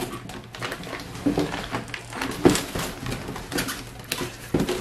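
Cardboard box, foam packing and a plastic bag rustling, with irregular knocks and clicks, as an intake manifold is handled and lifted out of its box by hand; the loudest knock comes about halfway through.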